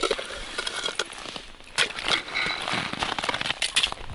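Irregular crisp clicks and crackles of gloves, line and dry frozen snow being handled at an ice-fishing hole as line is pulled up from a tip-up.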